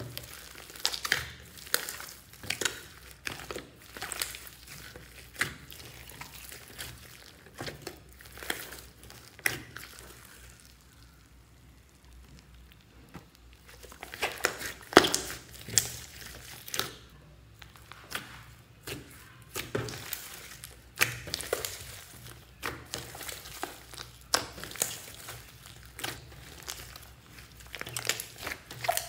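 Hands kneading and squeezing a large mass of wet, foam-streaked slime: irregular sticky pops, clicks and squelches as it is pressed and folded, going quieter for a few seconds near the middle.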